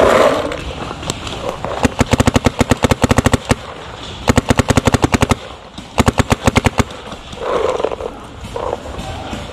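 Paintball marker firing rapidly in three strings of sharp shots, about ten shots a second: the first string lasts about a second and a half, the next two about a second each.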